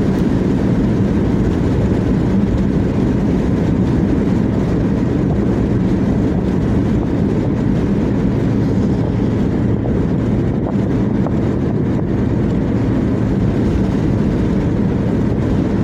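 Steady road noise of a car cruising at highway speed: tyre rumble on the asphalt mixed with wind, low and constant.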